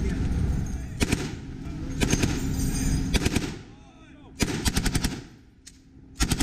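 M240B belt-fed light machine guns firing short bursts of a few rounds each, about one burst a second, with a single shot near the end.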